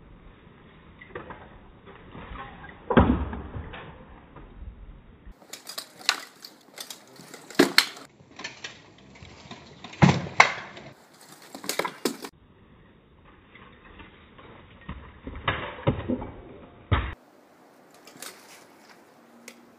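Sharp wooden knocks and clacks of a spear shaft and sword striking a shield and armour in sparring, coming irregularly. Stretches are slowed to half and quarter speed, so those knocks sound lower, duller and drawn out.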